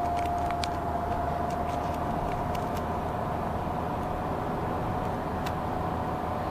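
2014 Fiat Grand Siena's gearbox whining at cruising speed: one steady tone over the car's road and engine rumble. The owner takes the whine for a gearbox defect, which Fiat's engineers say is normal for the car.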